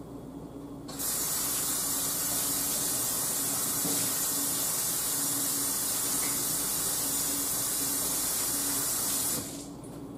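Kitchen sink faucet running in a steady hiss while hands are washed under it. It is turned on about a second in and shut off shortly before the end.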